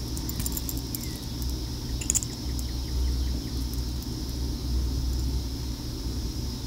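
Steady low rumble of background noise with a faint high hiss, and a few light clicks about a second in and again about two seconds in.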